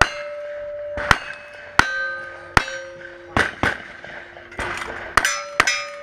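A string of gunshots at a cowboy action shooting stage, each followed by the ring of a struck steel target. There are about nine shots, spaced about a second apart at first and coming quicker near the end.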